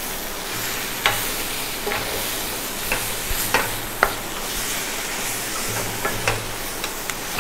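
Wooden spatula stirring and scraping a bitter gourd stir-fry in a kadai, with a steady sizzle of frying oil underneath. Sharp spatula knocks against the pan come irregularly, about one a second.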